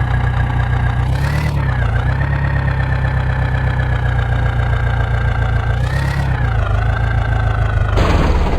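Heavy diesel engine of a tractor or backhoe running steadily, its pitch sagging briefly and recovering twice as load comes on, with short hissing bursts about a second in, around six seconds in and near the end.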